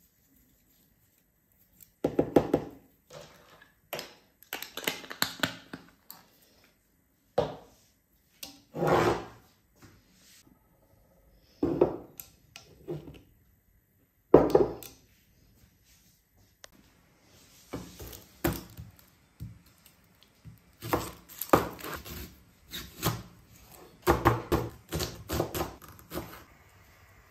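A series of short kitchen knocks and thuds, then a chef's knife chopping a red onion on a plastic cutting board: quick strikes that come in runs through the last ten seconds.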